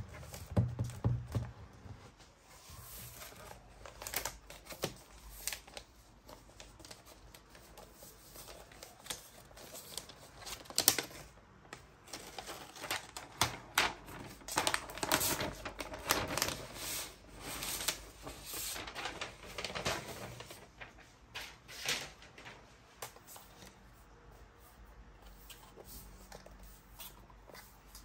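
A frosted snap-on plastic hard case being pried off a MacBook Pro: an irregular run of sharp plastic clicks and scrapes against the laptop's aluminium shell, busiest in the middle and thinning toward the end.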